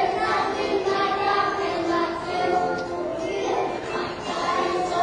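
A group of preschool children singing a song together, with music accompanying them.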